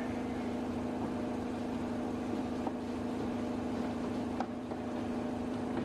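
A steady machine hum at one constant pitch, with a couple of faint knocks around the middle.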